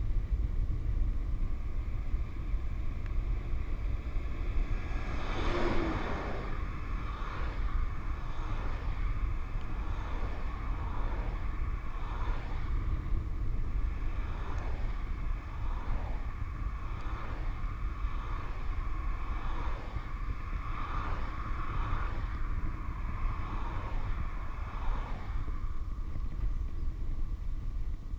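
Wind rushing over a handlebar-mounted action camera's microphone on a fast downhill bicycle ride: a steady low rumble, with a louder rush about five seconds in and a faint pulse about once a second through the middle.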